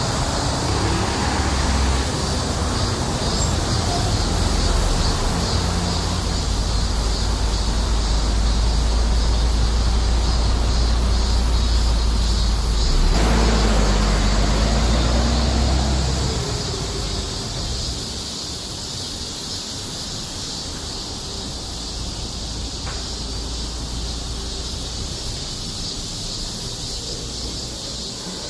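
Cicadas calling in a steady, pulsing chorus over the rumble of road traffic; a vehicle passes about 13 seconds in, and the traffic noise drops away after about 16 seconds, leaving mostly the cicadas.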